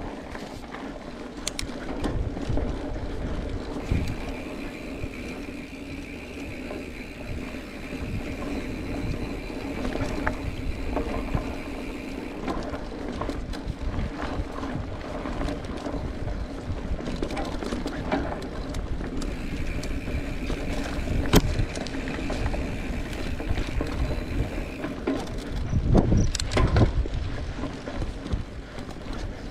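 Mountain bike being ridden along a dirt cross-country trail: tyres on the ground, rattling and clicking from the bike, and a steady low rumble of wind on the microphone. Sharp knocks come over bumps, the loudest about three-quarters through and again near the end.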